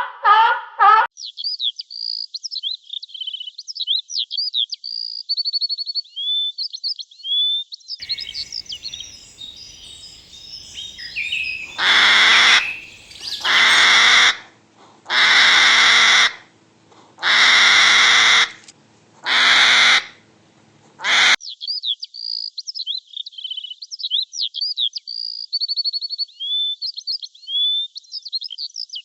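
Small birds chirping and twittering in quick high notes. Midway, a run of six loud, harsh calls about a second long each breaks in, then the chirping carries on.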